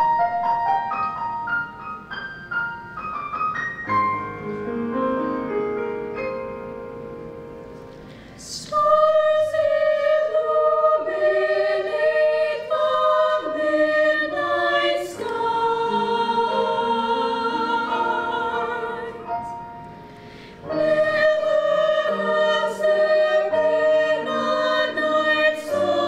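A short instrumental introduction of quick stepping notes, then a mixed high school choir comes in about nine seconds in, singing a Christmas song in sustained chords with vibrato. The singing breaks off briefly near twenty seconds and picks up again.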